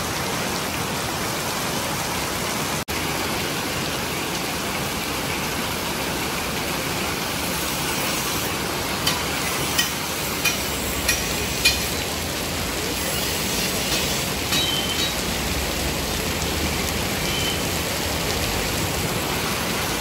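Steady rain-like rushing noise, broken off briefly about three seconds in, with a few sharp clicks and short high chirps around the middle.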